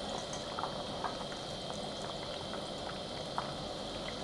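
Crumbed whiting pieces deep-frying in a pot of hot oil: a steady sizzle with small crackles popping through it a few times a second, the fish just about cooked.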